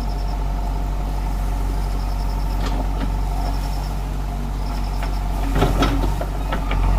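Backhoe loader's diesel engine running steadily, with a few sharp metallic knocks a little under halfway through and a cluster of them near the end. A faint high beep repeats about once a second.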